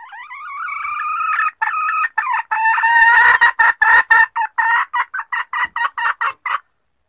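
Junglefowl hen calling: one drawn-out call held for about a second and a half, then a fast run of short clucking notes, about four a second, that stops abruptly near the end. It is a hen call of the kind played to lure junglefowl.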